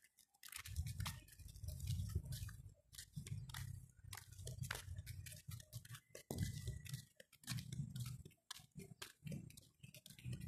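Crunching, scuffing footsteps on gritty concrete pavement: many short scrapes, with a low rumble underneath.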